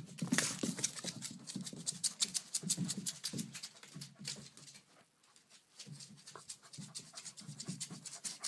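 A dog breathing hard while scrabbling about under a bed on a hardwood floor. There is a rapid run of clicks and scratches, with a short lull about five seconds in.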